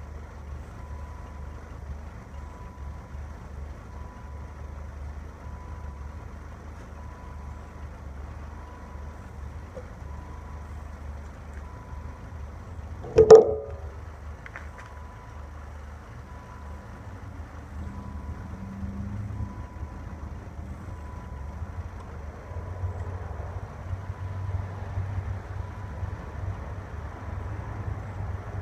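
Low, steady rumble of a 7.3 Powerstroke diesel engine, growing louder over the last few seconds. A chime beeps about once a second, and one sharp knock comes about halfway through.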